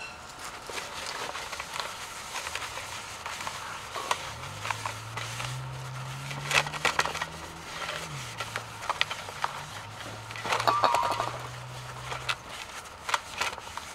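Shop towel rubbing and scrubbing the inside of a steel differential cover, with scattered small clicks and knocks as the cover shifts. A low hum sits in the background from about four seconds in until near the end.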